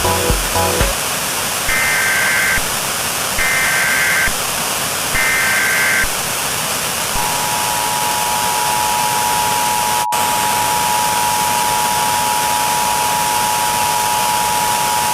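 Emergency Alert System header tones: three short bursts of warbling digital data tones, each about a second long, then the two-tone EAS attention signal held steady for about eight seconds. A constant hiss of static runs under it all.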